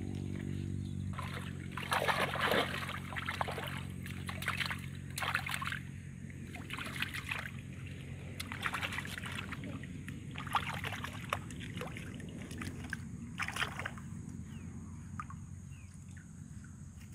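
Shallow water sloshing and splashing in short bursts every second or two as hands work in and around a woven bamboo basket fish trap. A steady low motor hum runs underneath.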